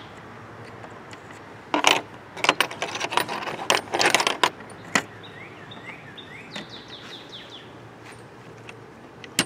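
Metal twist drill bits clinking and rattling against each other and their plastic case as they are picked out and sorted. The clinks come in a cluster between about two and five seconds in, with one more click near the end.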